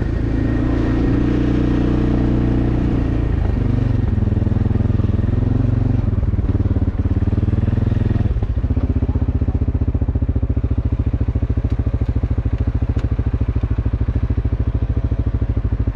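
Motor vehicle engine running, its pitch shifting up and down for the first eight seconds or so, then settling into a steady, evenly pulsing note.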